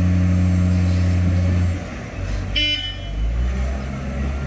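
Diesel engine of a railway breakdown crane running steadily, then easing down a little under two seconds in and continuing at a lower, rougher note. Just after it eases, a short high-pitched horn toot.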